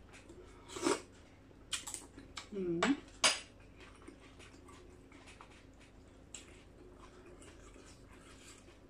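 A metal spoon clinking against a plate several times in the first three seconds or so, with a short mouth sound among the clinks, then quiet.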